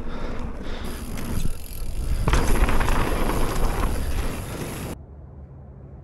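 Mountain bike being ridden over dirt: tyre rumble and rushing noise, heaviest for a couple of seconds in the middle, then dropping off suddenly about five seconds in to a quieter, duller hum.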